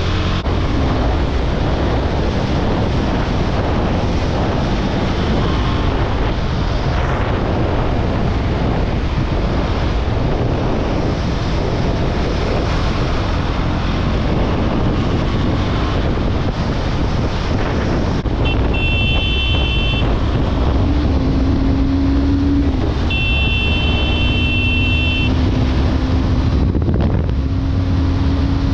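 KTM Duke 390 single-cylinder motorcycle at speed, around 120 km/h, with steady wind rush on the microphone over the engine. A brief high-pitched tone sounds twice, about 18 and 23 seconds in.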